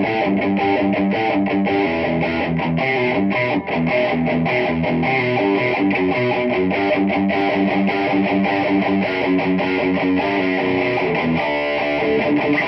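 Electric guitar played through a Peavey 6505+ combo amp on its green channel, heard through an Eminence Swamp Thang speaker: a steady rhythmic riff of quickly picked notes, changing to longer held chords near the end.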